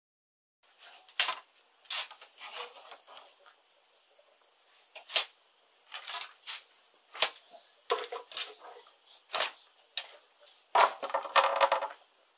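Machete chopping bamboo: sharp, irregular knocks as the blade strikes the bamboo pole, about a dozen blows with a quick run of them near the end.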